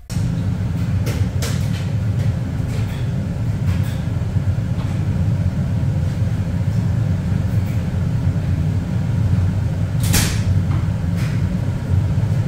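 Loud steady low rumble of machinery in a ship's laundry room, with a few short knocks and clatters as clothes are loaded into a front-loading washing machine; the clearest knock comes about ten seconds in.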